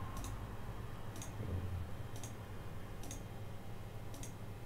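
Computer mouse button clicking about five times, roughly once a second, as profiles are selected one by one, over a low steady hum.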